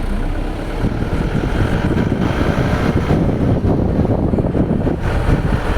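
A vehicle running on the move, with a dense, rough rumble and wind buffeting the microphone; it gets louder about a second in.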